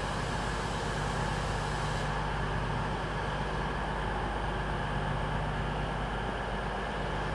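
Steady drone of a diesel train engine idling at a platform, with a high hiss that drops away about two seconds in.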